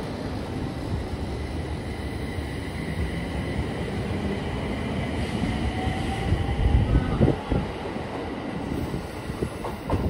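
JR East 701 series electric commuter train pulling out of the station past the platform: a steady rolling rumble, with a faint rising whine and a run of wheel clacks over the rail joints about six to eight seconds in as it gathers speed.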